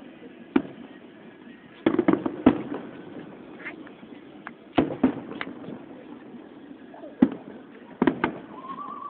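Fireworks bursting: sharp bangs, some single and some in quick clusters, about a second in, around two seconds, near five seconds, and again near seven and eight seconds.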